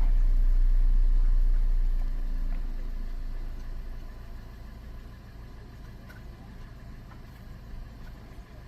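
Toyota car engine idling with the automatic transmission in neutral, a steady low hum, while the transmission fluid circulates before a level check. The hum is loud at first, then fades to a much fainter level over a couple of seconds, about two to four seconds in.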